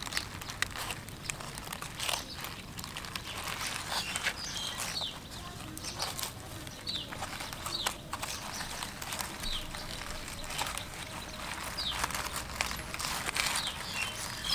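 A bamboo knife scraping and cutting along a fish on a split-bamboo board, giving irregular scraping clicks. Short high bird chirps come now and then.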